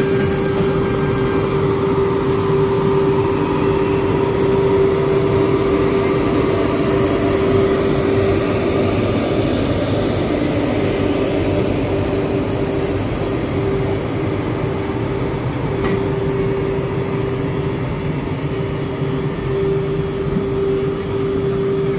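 Indian Railways WAG-12B twin-section electric freight locomotive passing slowly, with a steady humming tone from its electrics over the rumble of wheels on the rails.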